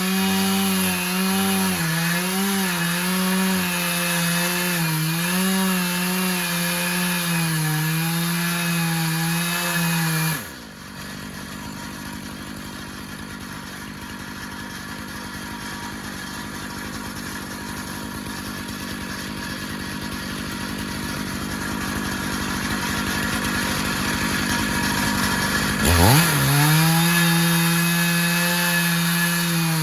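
Stihl MS 500i chainsaw in a Granberg Alaskan mill running at full throttle while ripping a cedar log, its pitch wavering under load. About a third of the way in it drops off suddenly and runs slow and quieter for about fifteen seconds, then revs back up near the end and carries on cutting at a steady high pitch.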